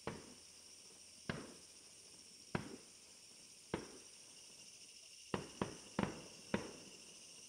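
Fireworks shells bursting: about eight sharp bangs, each with a short echoing tail, at first about a second apart, then four in quick succession near the end.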